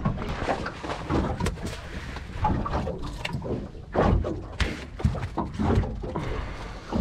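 Irregular knocks and thumps of a freshly caught snapper being handled and laid on a measuring mat on a boat's carpeted deck, the loudest about four seconds in.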